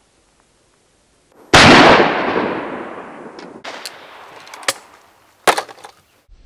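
A single shotgun shot about a second and a half in, with a long echo dying away over about two seconds. A few sharp clicks follow near the end.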